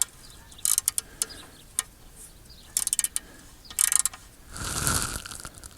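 Hand ratchet and socket tightening a loose torque converter bolt, clicking in a few short bursts of quick pawl clicks. A longer rasp comes about five seconds in.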